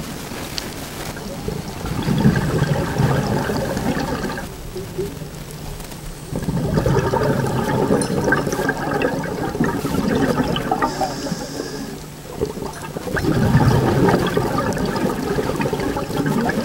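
Scuba diver's exhaled bubbles gurgling out of the regulator in three long bursts, with quieter pauses between them while the diver breathes in.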